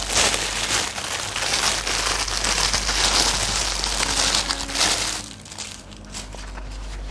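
Clear plastic packaging bag crinkling as it is handled and pulled open. The crinkling dies down about five seconds in.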